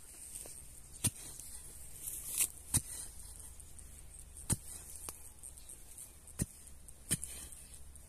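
Steel hoe blade striking into soil and grass, about five sharp chops spaced a second or two apart, over a faint steady high hiss.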